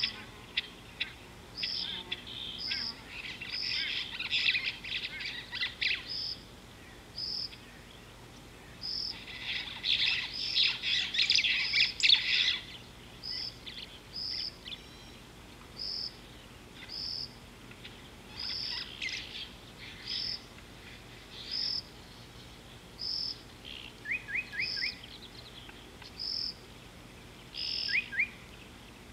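Birds calling: one bird repeats a single short high note about once a second, while others chatter busily near the start and again around ten seconds in, with a few quick rising whistles near the end.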